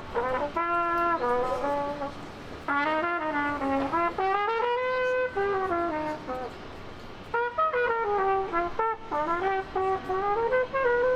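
A solo horn playing a jazz melody in several long phrases with short breaks between them.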